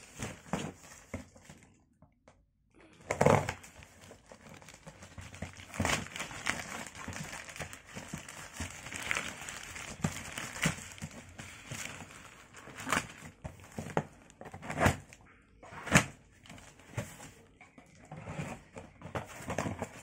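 Plastic courier mailer bag crinkling and rustling as it is handled and torn open by hand, irregular throughout, with a few sharper, louder crackles.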